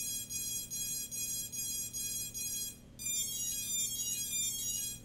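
Quadcopter ESCs playing calibration tones through the brushless motors: a run of short, even beeps about two a second, then from about three seconds in a quicker string of tones stepping up and down in pitch. The tones signal the ESCs setting their throttle range.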